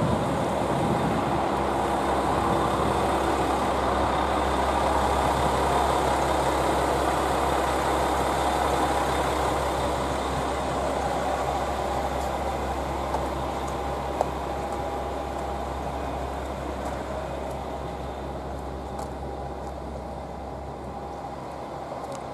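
A JR West KiHa 40-series diesel railcar's engine running steadily with a constant low hum, fading gradually through the second half.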